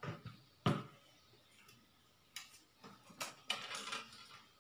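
Scattered sharp clicks and knocks of a fishing rod and spinning reel being handled and fitted together at the reel seat. The loudest knock comes just under a second in, with a quick run of scraping clicks near the end.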